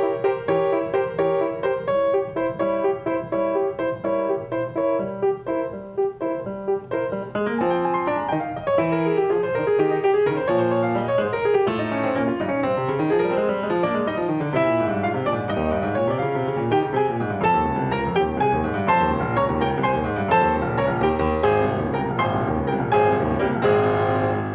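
Piano playing: evenly repeated chords for the first seven seconds or so, then a louder passage of running arpeggios sweeping up and down.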